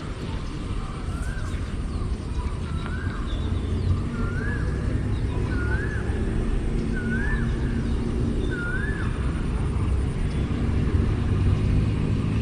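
A bird calling over and over: a short whistled note that rises and then drops, repeated about once every second and a half, seven times, over a steady low background rumble.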